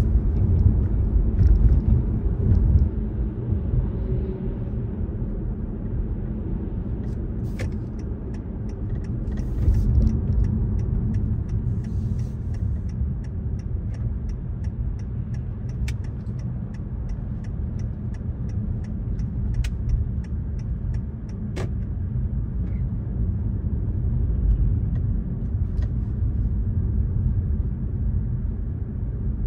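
A car driving at speed, with a steady low rumble of road and engine noise.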